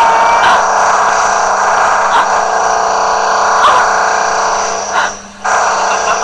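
A novelty sound effect played from a computer sound app through its speakers: a loud, steady buzzing drone with a few short sliding tones, breaking off briefly about five seconds in.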